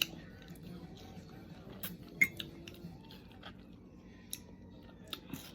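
Scattered light clicks and taps, about eight of them and the sharpest about two seconds in, over a faint low steady hum.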